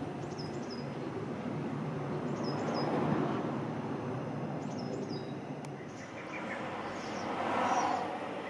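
A bird repeating a short high call of two quick falling notes, three times about two seconds apart, over a steady background rumble that swells twice.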